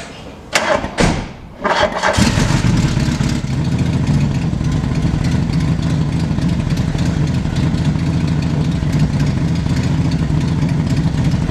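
Volkswagen Mk2 Golf GTI four-cylinder engine starting: brief loud bursts as it is cranked, then it catches about two seconds in and settles into a steady idle. It has freshly set ignition timing and new spark plugs and leads, and the owner reckons it is running on all four cylinders.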